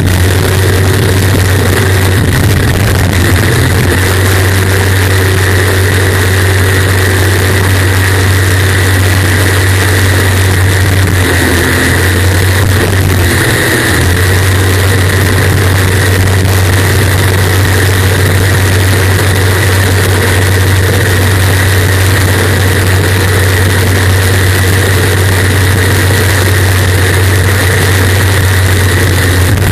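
Unlimited-class racing jet boat's engine running hard at speed, heard from a camera mounted on the boat as a loud, steady drone that wavers briefly about twelve seconds in.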